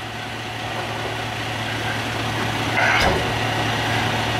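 Large diesel engine idling steadily, with a brief knock about three seconds in.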